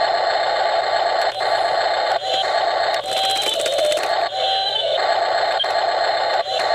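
Electric hammer/breaker of a 1:16 Double E RC excavator rattling rapidly against driveway ice, in runs broken by brief pauses.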